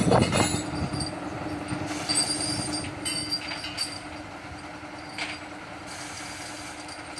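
Excavator engine running steadily, with a loud knock right at the start and high metallic squeals about two to three seconds in, as the machine is being driven up onto a truck.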